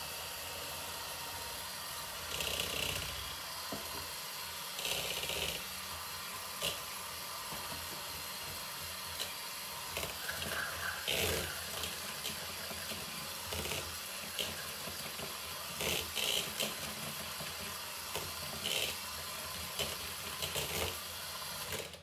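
Electric hand mixer running steadily as its beaters whisk sugar and eggs in a plastic bowl, with brief louder scrapes and rattles every few seconds. The mixer stops just before the end.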